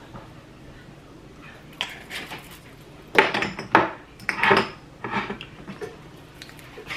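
Seasoning being shaken out of a spice container onto fish fillets: a run of short rattling shakes, about four loud ones in the middle, with lighter handling clicks of the container around them.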